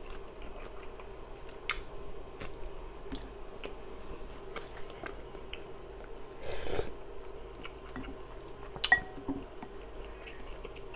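Close-miked chewing with small wet mouth clicks, then a slurp of borscht off a wooden spoon about six and a half seconds in, and a sharp click near nine seconds.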